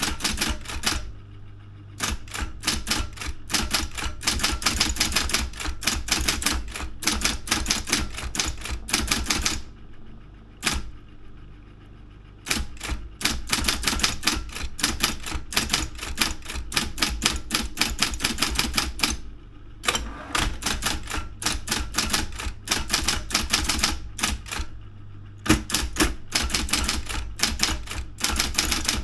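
Daro 202 electric typewriter being typed on in quick runs of key strikes, several a second, broken by a few short pauses. A steady low hum runs underneath.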